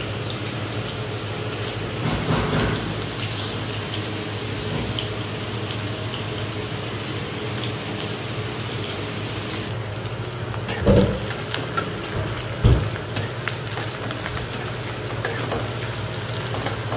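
Sliced onions, green chillies and cumin sizzling steadily in hot oil in an aluminium kadai, being sautéed until fragrant. A couple of sharp knocks of the stirring utensil against the pan come a little past the middle.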